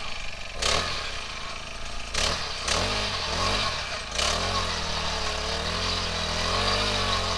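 Small gas engine of a one-man earth auger running and revving up and down repeatedly as its spiral bit bores a fence post hole.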